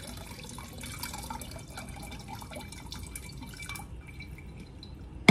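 Hibiscus tea (agua de jamaica) poured from a bowl through a fine mesh strainer into a glass pitcher: liquid trickling and dripping. The trickle thins out about four seconds in, and a sharp clink comes right at the end.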